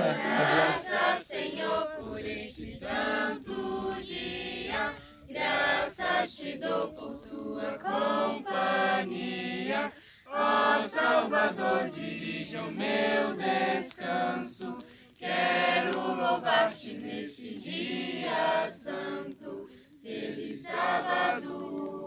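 A group of men and women singing together a cappella, with no instruments, in phrases broken by short pauses between lines.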